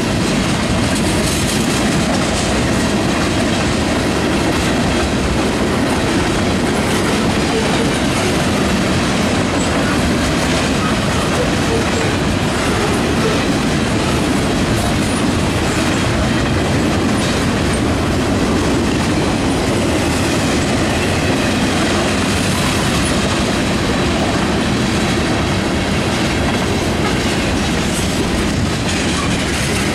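Freight cars of a passing manifest train rolling by close at hand: tank cars, hoppers and boxcars making a steady, loud noise of steel wheels on the rails.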